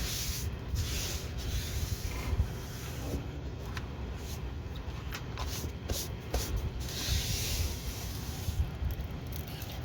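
Soft rustling and rubbing in intermittent bursts of hiss, with a few faint clicks.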